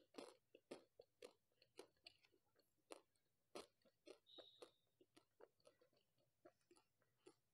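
Close-miked mouth chewing a bite of Amul Rajbhog kulfi ice cream bar: a quiet run of short, wet clicks, about three a second.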